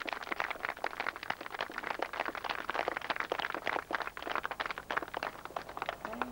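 A small crowd clapping: dense, irregular handclaps that stop at about six seconds in.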